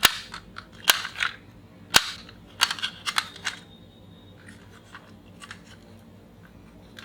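Sharp clicks and knocks of hard plastic toy trucks being handled and set down, about eight in the first three and a half seconds, then only faint ticks.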